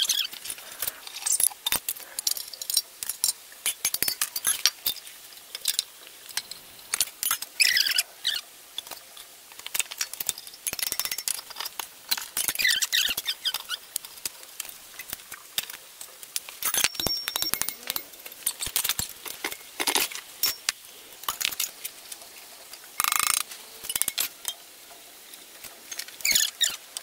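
Metal hand tools clinking, tapping and scraping on a mud-caked single-cylinder diesel engine as it is taken apart: irregular small metallic clicks with a few short scraping sounds.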